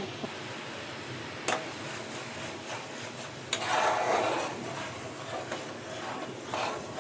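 Kitchen utensils being handled: a sharp knock about a second and a half in and another about three and a half seconds in, the second followed by a second or two of scraping, then a few softer knocks.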